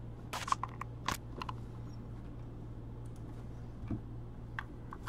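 A few faint, short clicks from working a laptop, bunched in the first second and a half with a couple more near the end, over a low steady hum.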